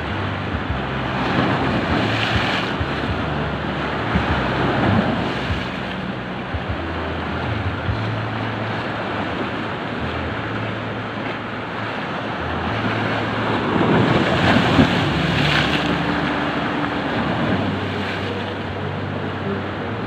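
Pacific Ocean surf washing onto a sandy beach, a continuous rush of waves that swells louder about two seconds in and again around fourteen to fifteen seconds, with some wind on the microphone.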